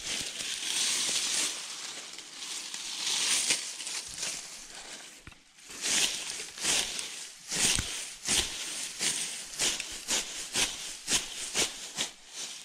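Long grass rustling as it is grabbed and pushed aside. About halfway in, a quick series of sharp snips follows, two to three a second, as hand pruning shears cut through the grass stems.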